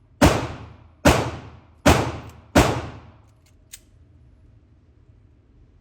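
Four gunshots from a firearm at a shooting range, fired one after another about 0.8 s apart, each with an echoing decay. A couple of faint clicks follow.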